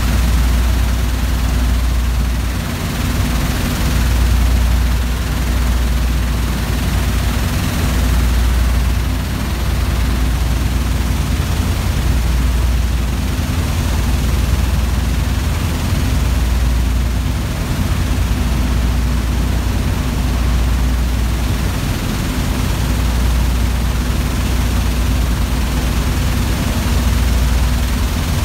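Oilfield shale shakers in a drilling-mud solids-control system running steadily, a loud machine drone with a deep hum that swells and fades every couple of seconds.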